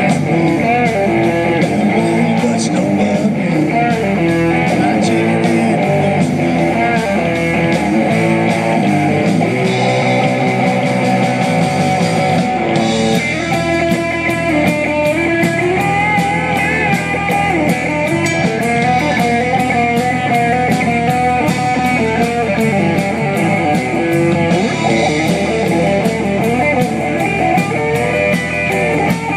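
A live rock band playing an instrumental break, led by guitar over a steady beat.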